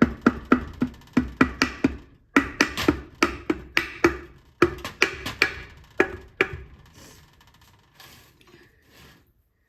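Rapid sharp knocks or taps on engine parts during a small-engine teardown, about three or four a second in three short runs. They stop after about six and a half seconds, leaving faint handling noise.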